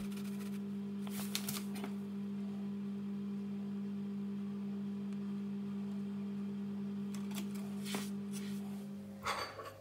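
A steady low hum, with brief rustling and scraping about a second in and again near the end as flour is poured from a paper bag and spooned in a plastic bowl on a kitchen scale.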